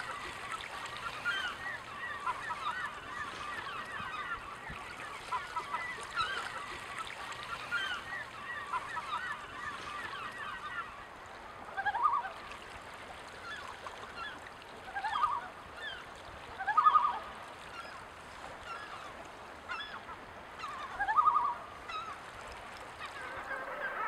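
Seabirds calling: a busy chorus of many short calls in the first half, then four louder single honking calls spread through the second half.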